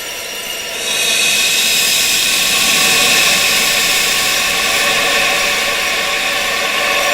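Wind-sound track for tinnitus therapy: a steady rushing noise with faint high tones held through it. About a second in it swells louder and brighter.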